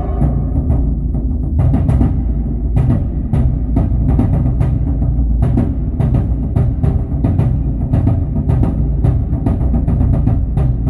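Drum-heavy music with rapid percussion hits over strong bass, played through a car audio system with a Hertz MPK 163.3 three-way component speaker kit and a Pioneer subwoofer.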